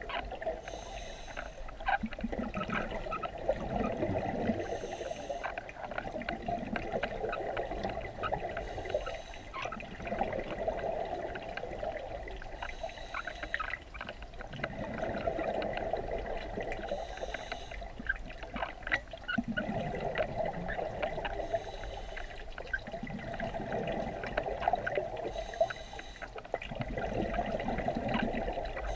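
Scuba diver breathing through a regulator underwater, in a steady cycle about every four seconds: a short hiss of air drawn through the regulator, then a longer bubbling as exhaled air escapes.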